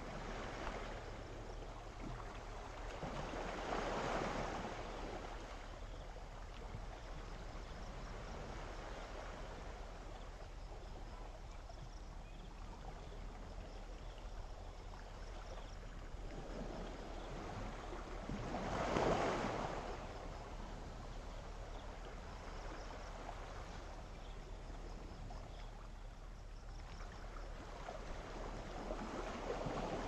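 Small sea waves washing onto the shore. There is a steady low wash, with three swells that build and fade over a second or two: about four seconds in, about nineteen seconds in (the loudest), and near the end.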